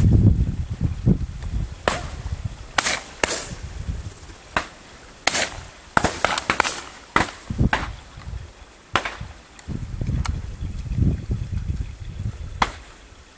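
Shotguns firing at driven partridges: more than a dozen irregular shots from several guns, some near and loud, others fainter and farther off, with a low rumble at times in between.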